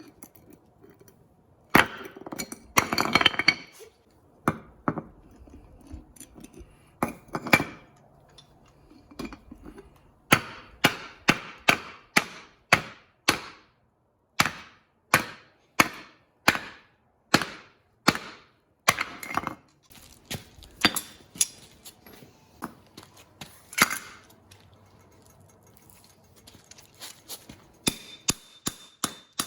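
Repeated sharp hammer blows on a hard object, struck at about two a second for several seconds at a stretch, with pauses between runs and a quicker run near the end.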